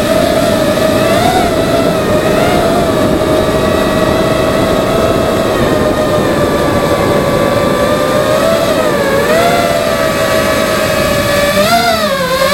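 FPV racing quadcopter's motors and propellers whining in flight, a mostly steady pitch that wavers and dips briefly with throttle changes about nine seconds in and near the end, over a dense rush of propeller wash and wind on the onboard camera.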